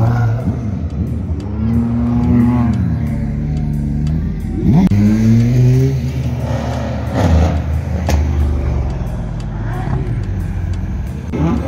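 Car engines revving: the engine note climbs and falls several times, with a sharp rise about five seconds in.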